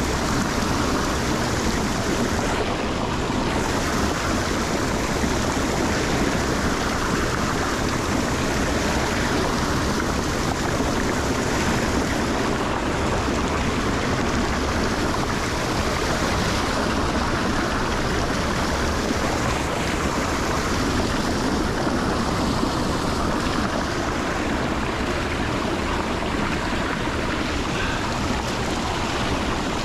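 Water rushing steadily into an unclogged lake drain, pouring in from both sides in a constant wash.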